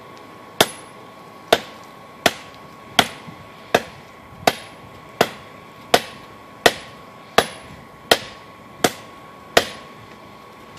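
Hand hammer striking hot steel, forging a rusted adjustable wrench into a knife blade: thirteen steady blows, about one every three-quarters of a second, each with a short metallic ring, over a faint steady tone.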